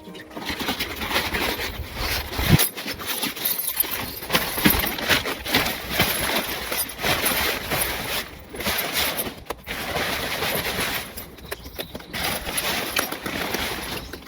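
Rustling and irregular clattering of camping gear being handled, with light knocks and clicks, as parts are unpacked and sorted for assembly.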